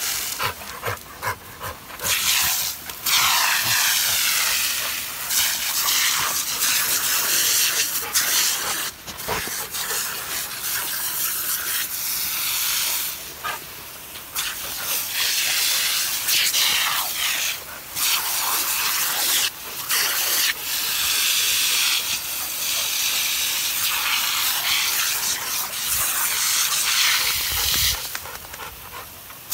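Lawn sprinkler hissing as it sprays a jet of water, the hiss breaking off briefly and coming back again and again.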